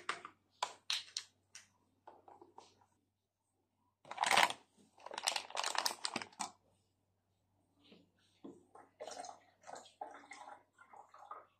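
Foil-lined coffee bag crinkling loudly as it is folded shut, with short plastic clicks and knocks as it goes into a plastic storage container and the container's lid is closed.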